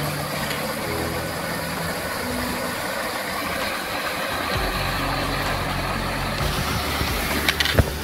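Small mountain stream rushing and splashing over rocks in a little cascade, a steady rush of water. Low background music notes step from one pitch to another beneath it.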